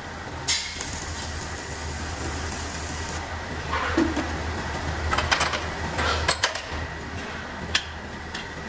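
Steel parts and tools clanking and tapping on a welding bench as a freshly stick-welded steel seat bracket is handled in its jig: a few sharp knocks about half a second in and around four seconds, a quick cluster between five and six and a half seconds, and one more near the end, over a steady low hum.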